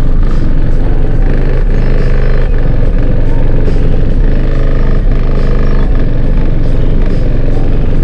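A car audio system with four CT Sound EXO 12-inch subwoofers, one of them blown, plays bass-heavy music at high volume. Deep held bass notes change about every second under a dense, constant wall of sound.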